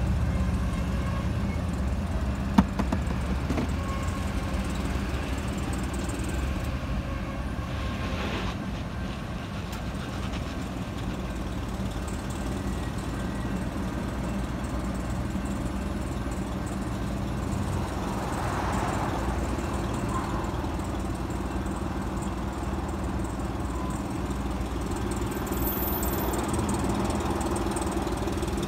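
Freight train cars rolling past a grade crossing, a steady low rumble of wheels on rail, with a single sharp click about two and a half seconds in.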